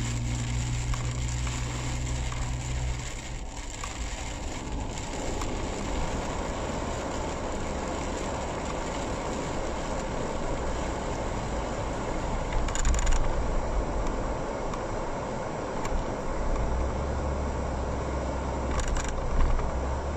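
Car driving through rain and standing water, heard from inside the cabin: a steady rushing hiss of tyres and rain, with a low engine hum that fades about three seconds in. Two brief louder bursts come about two thirds of the way through and near the end.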